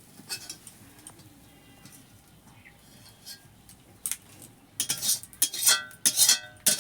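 Metal utensil clinking against metal cookware, a quick run of about half a dozen ringing clinks starting about four seconds in after a quiet stretch, as the fried jackfruit pieces are handled in the pan.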